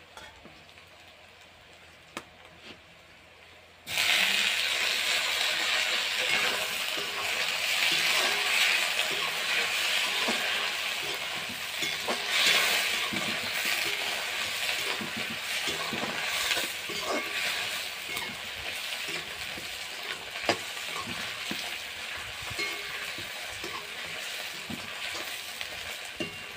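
Chopped tomatoes hit hot oil and onions in a steel kadai about four seconds in, setting off a sudden loud sizzle that slowly eases off. A metal spatula stirs and scrapes the pan, with scattered clinks.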